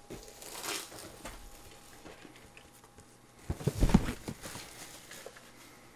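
Plastic shrink-wrap being torn and peeled off a cardboard model-kit box, with faint crinkling. A little past halfway there is a louder spell of rustling and a few knocks as the box is handled.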